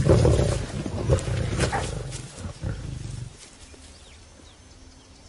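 Several lions growling while squabbling over a small kill, a baboon. The growling stops about three seconds in, leaving a quiet background.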